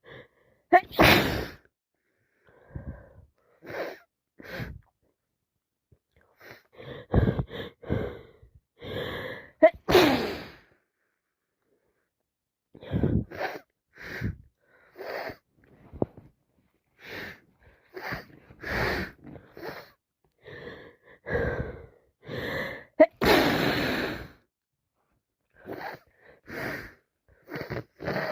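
A woman with a heavy head cold sneezing again and again, with gasping in-breaths between the sneezes; the loudest come about a second, ten and twenty-three seconds in.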